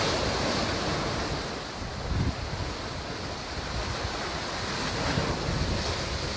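Wind gusting over the microphone at sea, with waves washing, in stormy weather.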